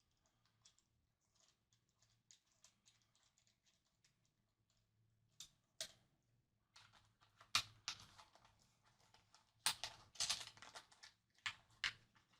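Small metal clicks and taps from the nuts and washers of Fender locking tuners being handled and threaded onto the tuner posts by hand. Faint, sparse ticks at first, then a busier run of sharper clicks in the second half.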